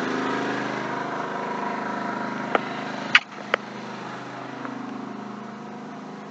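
Ryobi 4000-watt open-frame inverter generator running steadily under the load of a 15,000 BTU RV air conditioner. A few sharp clicks or knocks come about two and a half to three and a half seconds in; after the loudest one the engine hum is quieter and more muffled.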